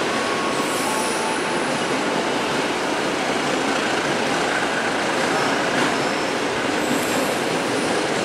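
Container freight train rolling through the station: a steady rumble and rattle of wagon wheels on the rails, with faint high-pitched wheel squeals about a second in and again near the end.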